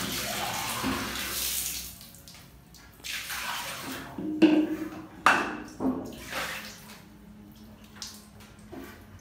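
Water splashing and running onto a tiled floor for about two seconds as a water-purifier filter housing and cartridge are emptied. This is followed by a series of sharp plastic knocks and clatter as the filter housings and cartridges are handled and set down.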